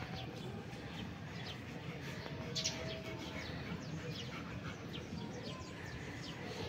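Small birds chirping over and over in short, high, falling chirps, with one louder chirp about two and a half seconds in.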